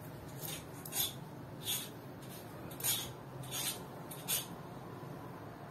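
Hand running through long straight hair close to the microphone: about six short, soft rustling swishes.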